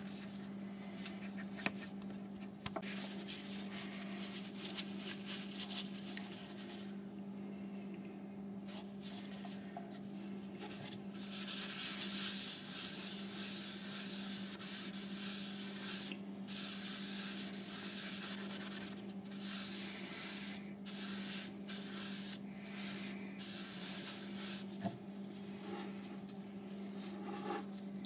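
A cloth rubbing finish onto the walnut bottom of a turned bowl, in quick irregular wiping strokes that pick up about eleven seconds in, over a steady low hum.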